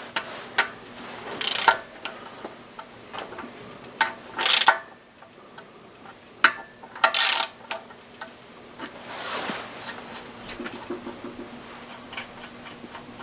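Hand tools working the nuts on a camshaft's bearing caps: light metal clicks and clinks, with four short rasping bursts, the loudest about four and a half and seven seconds in.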